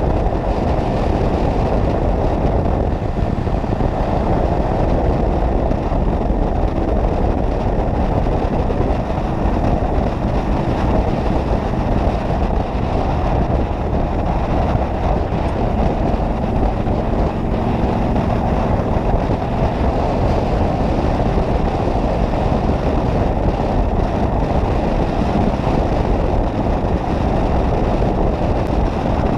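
Waterfall: a steady, even rush of falling water, heavy in the low end.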